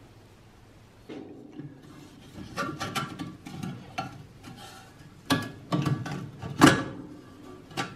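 Rusty metal frame and wire parts of a vintage oil lamp being handled: scraping and rattling, with several sharp metal clinks and knocks, the loudest a little past the middle.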